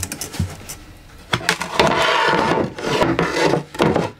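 Wooden cabin floorboard being lowered and worked back into its frame over an under-floor locker: wood rubbing and scraping on wood for a couple of seconds, with a few knocks.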